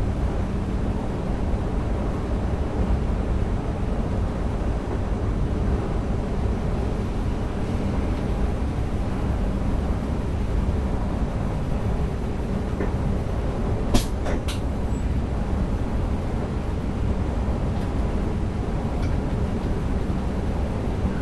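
An NS DDZ double-deck electric train running along the line, heard from the driver's cab as a steady low rumble with a faint steady hum. Two sharp clicks come in quick succession about two-thirds of the way through.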